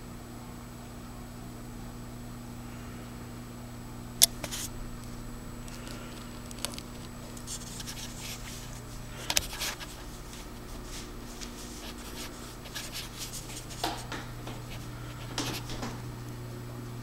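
Footsteps going down indoor stairs with ribbed rubber treads: a handful of irregular soft steps and knocks, the loudest a sharp click about four seconds in, over a steady low hum.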